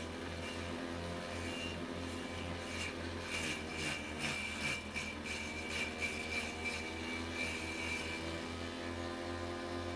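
Electric water-pump motor driving a grass-trimmer blade in a homemade vegetable chopper, running with a steady hum. From about three seconds in, irregular clattering and slapping as vegetables are fed in and cut, dying away near the end.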